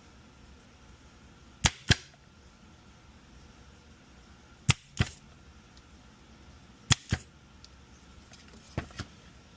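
Four pairs of sharp, short clicks, the two clicks in each pair a fraction of a second apart, from hand tools working the pins of an automotive circuit board.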